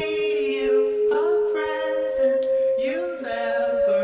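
Soundtrack music: a song with a singing voice gliding between long held notes over a steady sustained tone.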